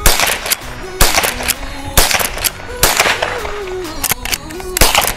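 Henry Golden Boy .22 LR lever-action rifle fired about five times, roughly one shot a second, with pop music and singing underneath.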